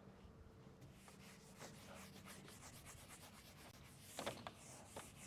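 Faint, rapid scratching strokes of a pen drawing on a writing surface. They start about a second in, with a louder cluster of strokes near the end.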